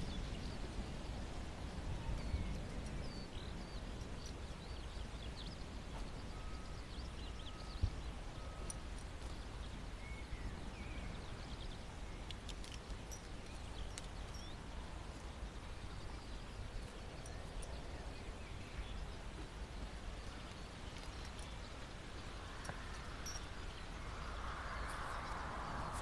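Open-pasture ambience: steady wind rumbling on the microphone, with faint bird chirps now and then. Near the end a louder soft rustling noise comes in as the horses move close by.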